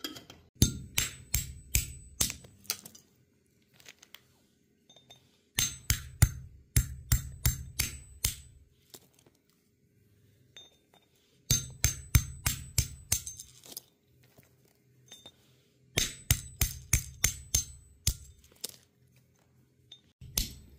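Walnuts being cracked with quick, repeated knocks on a round board, in four bursts of sharp taps, about four or five a second, each burst lasting two to three seconds, with a light metallic ring.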